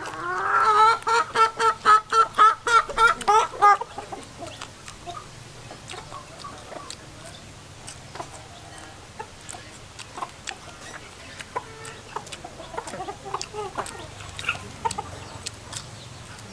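A chicken clucking loudly in a quick run of calls, about four a second, for the first four seconds, then quieter with scattered small clicks and a few fainter clucks later on.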